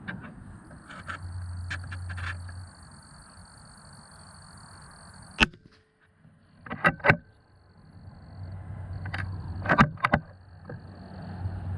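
A single .22 rimfire rifle shot, one sharp crack about five and a half seconds in, fired from a Suhl 150 target rifle with Eley match ammunition. Short metallic clicks come before it and in pairs after it, like the bolt being opened and closed, over a low steady background rumble.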